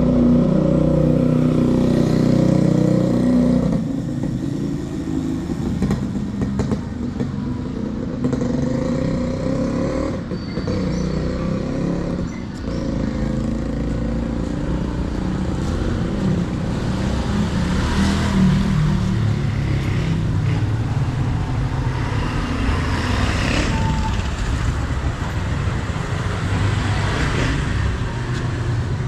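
Street ambience: a motor vehicle's engine runs close by for the first few seconds, then the steady noise of road traffic carries on underneath.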